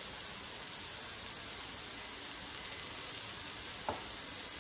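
Julienned carrots sizzling steadily in a frying pan, with one short click about four seconds in.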